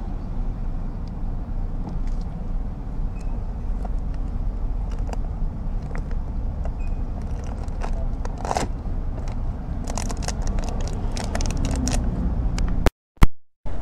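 Steady low rumble of motor vehicles, with a run of small clicks and rattles in the last few seconds. The sound cuts out suddenly near the end, with one sharp click in the gap.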